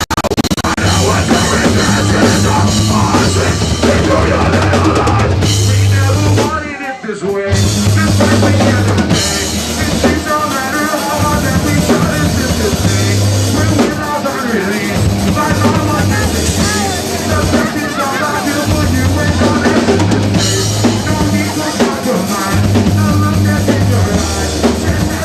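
Live rock band playing loudly, the drum kit prominent with kick and snare, with a brief break about seven seconds in.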